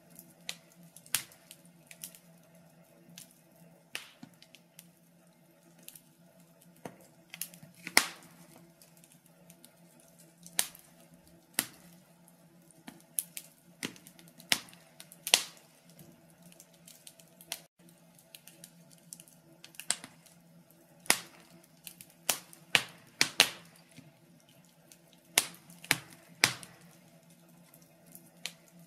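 Wood fire crackling in a stove: irregular sharp pops and snaps, a few of them loud, over a faint steady hum.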